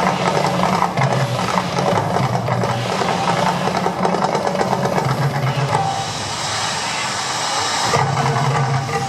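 Mirage volcano show erupting: a steady, loud rumble under crowd voices, with a hissing rush from about six to eight seconds in.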